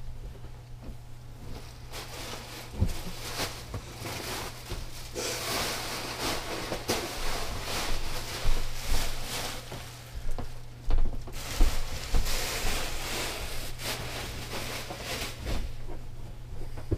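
Upholstered chair cushions and fabric rustling and bumping as they are handled and pushed into place, in two busy stretches with scattered knocks. A steady low hum runs underneath.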